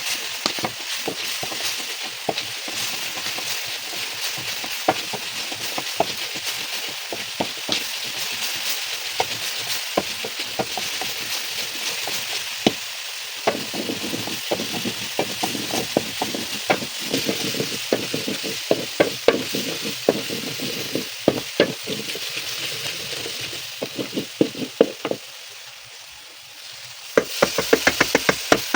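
Food sizzling in hot oil in a frying pan while a metal spatula stirs it, scraping and clinking against the pan, with a quick run of clinks near the end.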